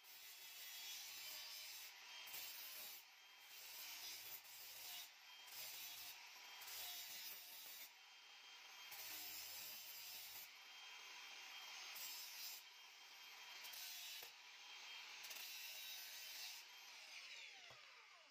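Angle grinder grinding along the cut edge of a steel sheet, rounding off its corner. It swells and eases in passes of about a second as the disc is pressed on and lifted. Near the end it is switched off and winds down with a falling whine.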